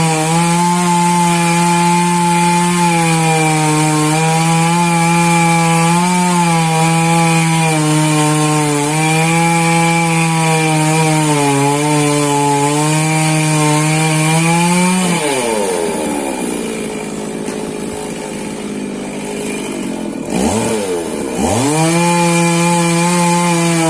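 Petrol chainsaw running at high revs, its pitch wavering slightly. About fifteen seconds in, the engine speed falls and it runs lower and rougher for several seconds. It dips sharply twice, then revs back up to full speed near the end.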